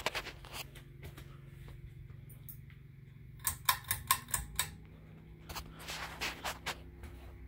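Ceiling fan motor humming steadily, broken by three bursts of quick, sharp clicks: at the start, about halfway through and again a little later. The hum shifts slightly in pitch just after the middle burst of clicks.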